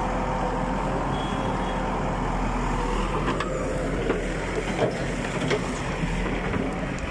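Diesel engine of a backhoe loader running steadily with a low, even drone.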